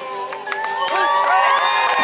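The last held notes of an acoustic guitar song die away, then an audience breaks into cheering, with many whoops and shouts starting about halfway through and growing louder.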